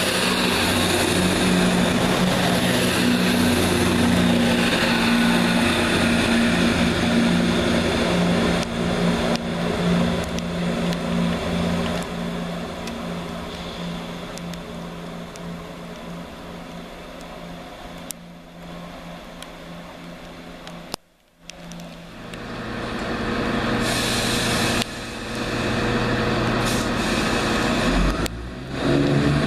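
ScotRail Class 170 Turbostar diesel multiple unit passing along the platform, its underfloor diesel engines running with a steady low tone, then fading as it draws away. After a sudden cut, another Class 170 runs into the platform and its engine sound grows louder.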